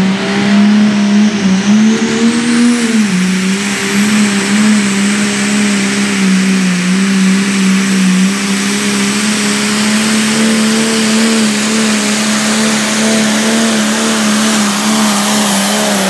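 Pulling tractor's engine running loud at full throttle, held at high revs through a pull with only a brief rise and dip about three seconds in, with a faint high whine over it.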